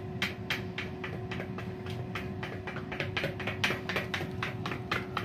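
Luxell FastFryer XXL air fryer running in bake mode: a steady fan hum, with irregular sharp ticks over it, several a second.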